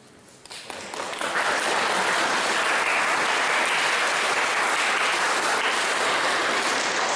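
Audience of pupils and adults applauding, building up about a second in and then holding steady.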